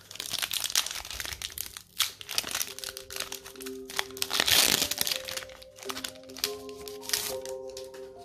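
Foil wrapper of a Pokémon booster pack crinkling and being torn open, with the loudest rip about four and a half seconds in. Soft background music with held, changing notes comes in about three seconds in.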